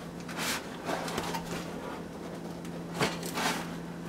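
Faint handling of a cardboard product box being lifted and stood on end: soft rustles and scrapes with a light knock about three seconds in, over a steady low hum.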